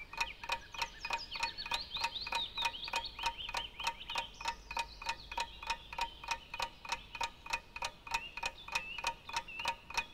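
Clock ticking steadily, about four ticks a second: a countdown timer for a timed task. High twittering chirps come in above it from about a second in and fade out after about halfway.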